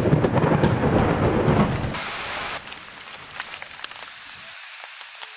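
A loud rumble of thunder that fades after about two seconds, leaving rain falling with scattered drips.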